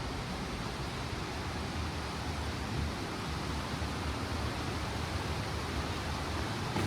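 Steady rushing of a river and waterfall, an even wash of noise with a heavy low rumble.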